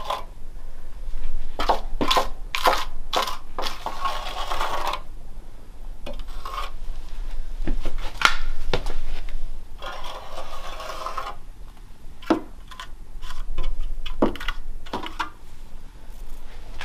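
Steel finishing trowel scraping and clinking on the floor as it spreads and feathers wet self-levelling concrete along the base of the wall: a run of short strokes, with two longer scrapes about four and ten seconds in.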